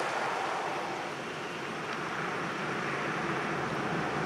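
A pickup truck driving across a railroad grade crossing: a steady rush of road noise that dips slightly about a second in.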